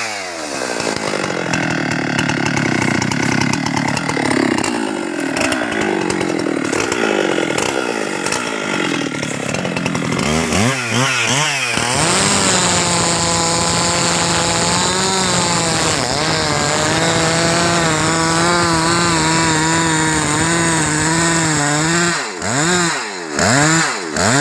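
Husqvarna 390XP two-stroke chainsaw. Its engine note drops sharply at the start, and the throttle is blipped several times about eleven seconds in. It then runs at steady high revs for about ten seconds while cutting into a teak trunk, and is revved up and down in quick blips again near the end.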